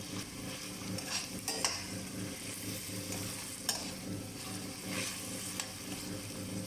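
Chicken being sautéed in a pan and stirred, with steady frying noise. A utensil scrapes and knocks against the pan several times, over a steady low hum.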